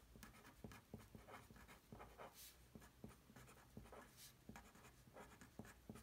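Faint scratching of a felt-tip pen writing on a paper worksheet, in many quick short strokes.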